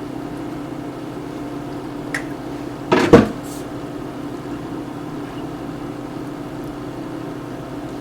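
Steady background hum in a kitchen, with a single short, loud clatter about three seconds in and a faint click just before it.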